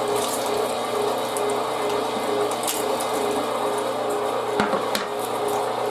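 A 1.5 HP electric meat grinder running under load as it grinds chilled pork cubes: a steady motor hum, with two sharp knocks near the end.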